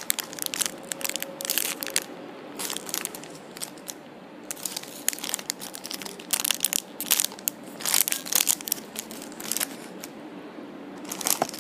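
Clear plastic packaging crinkling and crackling irregularly as bagged squishy coin toys are picked up, turned over and set down.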